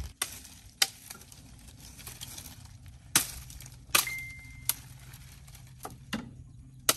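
Dry, dead branches cracking and snapping as they are lifted and handled: a series of sharp, separate cracks.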